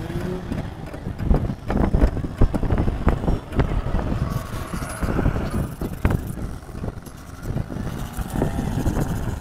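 Greasy metal parts being washed by hand in a metal basin of dark liquid: irregular clinks and knocks of metal on the pan, with splashing, over background vehicle noise.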